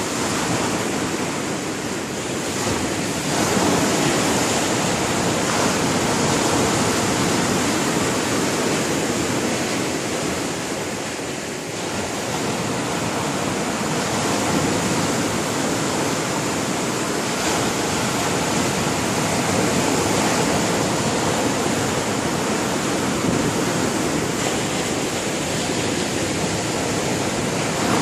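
Sea waves breaking and washing on the shore in a continuous surf noise, swelling and easing slowly in loudness.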